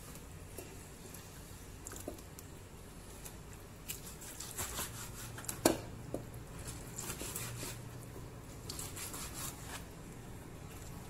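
Kitchen knife slicing boiled beef fat on a plastic cutting board: soft cutting and handling of the meat with scattered light taps of the blade on the board, one sharper click a little past halfway.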